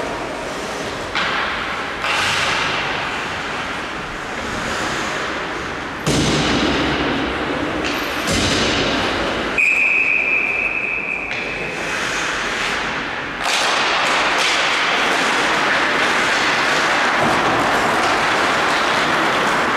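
Ice hockey being played: steady rink noise broken by sudden thuds and knocks of puck and sticks against the ice and boards. A referee's whistle sounds once about ten seconds in, a single steady shrill tone held for under two seconds.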